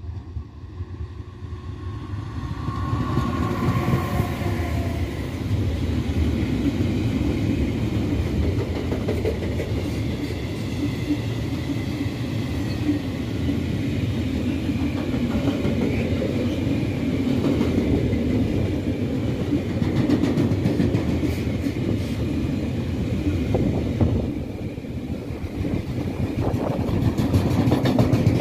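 A DB Cargo Italia E191 electric locomotive approaches and runs through, with a brief whine as it passes about three seconds in, followed by a long freight train of loaded car-carrier wagons rolling by with a steady rumble and wheels clattering over rail joints.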